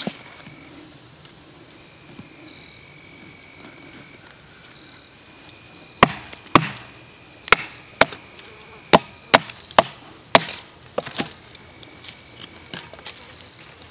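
A wooden baton striking a stick about nine times in quick succession, starting about six seconds in: batoning, knocking a knife down through the wood to split it. Insects buzz steadily throughout.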